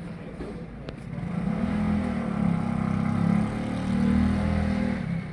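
Motorcycle engine running past close by: it grows louder from about a second in and fades away near the end.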